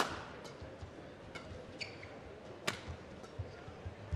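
Badminton rally: rackets striking the shuttlecock about every second and a half, four sharp hits with the loudest near the middle. Between the hits come softer footfalls and brief high shoe squeaks on the court floor.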